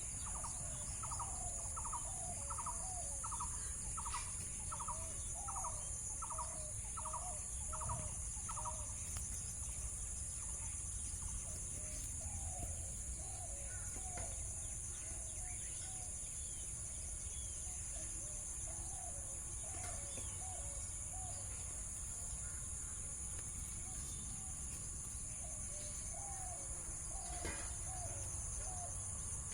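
Outdoor ambience: a steady high-pitched drone of insects throughout, with a bird calling in a quick run of repeated short notes, about one a second, for the first nine seconds or so. Further scattered bird calls follow later.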